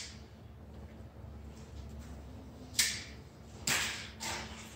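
Three short, sharp swishing knocks, the first about three seconds in and the others close after it, over a steady low hum.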